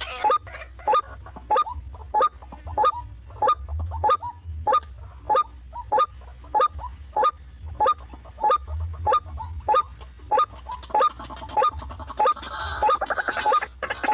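White-breasted waterhen calling: a long, steady series of short harsh honking notes, about one every half second, growing denser and more layered near the end.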